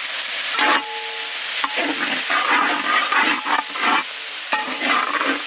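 Sliced onions and green chillies sizzling in hot oil in a large metal kadai, fried toward golden for a curry base. A long metal ladle scrapes and stirs them against the pan in repeated strokes, with a few short metallic rings.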